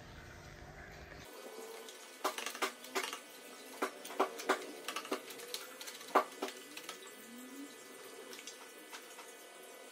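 Light, irregular clicks and clinks of hand tools and bolts being worked at the motorcycle's battery terminal wiring. Most come in a cluster from about two to seven seconds in, over a faint hiss.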